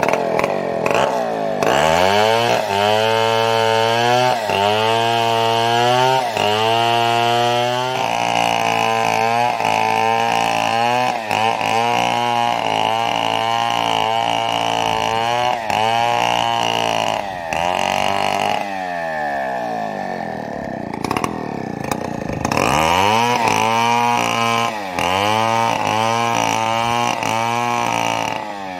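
Chainsaw ripping a fallen coconut trunk into cocolumber planks, its engine repeatedly revving up and dropping back every second or two as it cuts. Near the two-thirds mark the engine eases off to a lower note for a few seconds, then picks up its revving cuts again.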